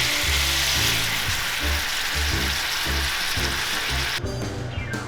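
Food sizzling loudly in a hot pan, a steady frying hiss that cuts off suddenly about four seconds in.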